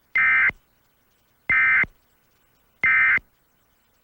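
Emergency Alert System end-of-message signal: three short bursts of SAME digital data, each a rapid two-tone warble, about a second and a half apart, marking the end of the alert.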